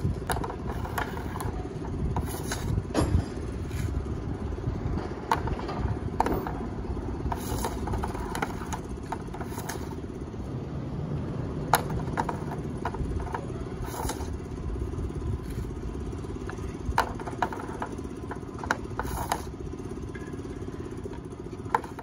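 Hockey stick blade and puck clacking and scraping on a plastic shooting pad in sharp, irregular clicks, over a steady low background rumble.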